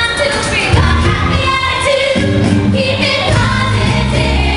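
Pop-style musical-theatre song with singing, played as the backing track for a gymnastics display.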